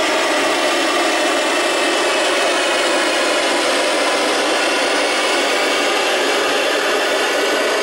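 Steady FM radio static: the 2 m receiver on the ISS downlink frequency, 145.800 MHz, gives out loud, even hiss with no signal on the channel. It switches in and out abruptly between the relayed voice transmissions.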